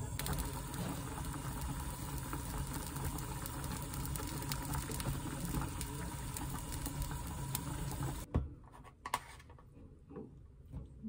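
Pork boiling hard in water in an aluminium pot on a gas stove: a steady bubbling. About eight seconds in it cuts off, and a few light taps and clicks follow as a spoon scoops minced garlic from a plastic tub into a glass mug.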